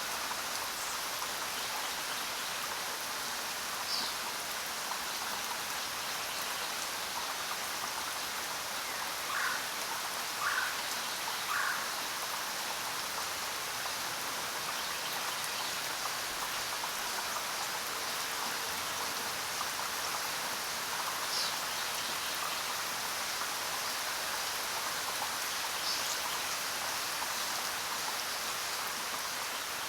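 Steady rain falling on jungle foliage, an even hiss. A few short animal calls break through it: a single high call, then three lower calls about a second apart, then two more high calls later on.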